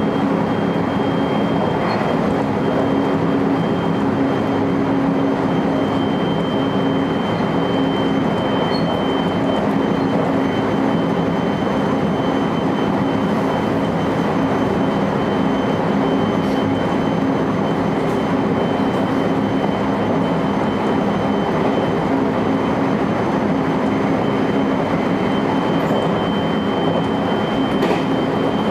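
JR electric train running steadily, heard from inside at the front: even rumble of wheels on rail with a low hum and a steady high whine, and a few faint clicks from rail joints.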